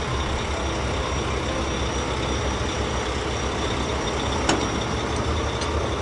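Heavy construction vehicle engine running steadily with a low rumble, with a single sharp click about four and a half seconds in.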